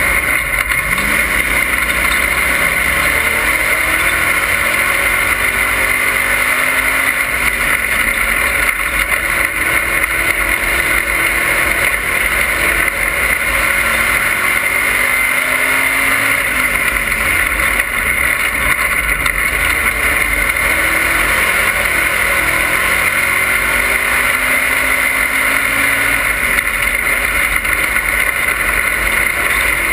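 Dirt-track race car engine heard from inside the cockpit at racing speed, its pitch rising and falling over and over as the driver gets on and off the throttle through the turns, over a loud, constant rush of wind and road noise.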